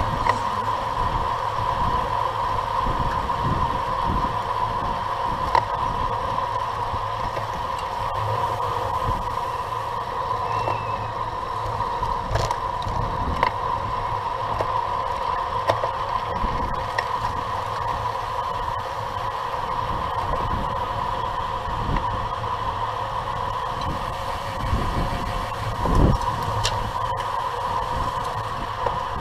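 Wind rushing and buffeting over the microphone of a camera on a racing bicycle at speed, over a steady whir from tyres and drivetrain, with a thump near the end.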